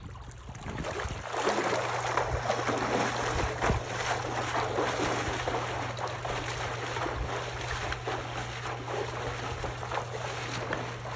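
Pool water splashing and churning steadily as a person swims freestyle-style strokes through it.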